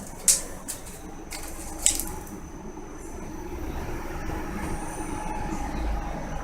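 Homemade steel hoist frame being rolled across the floor on its wheels: two sharp knocks in the first two seconds, then a steady rolling rumble that slowly grows louder.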